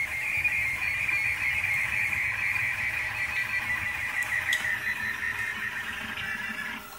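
Rostock Max delta 3D printer running a large print, its motors giving a steady high whine that wavers slightly in pitch as the arms move.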